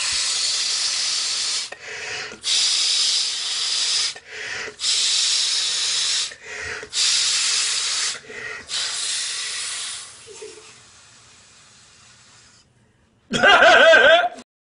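Forceful breaths hissing out through the nose into a condom stretched over the head, inflating it: five long blows with short pauses between them, then a fade to quiet. Near the end, a loud burst of laughter.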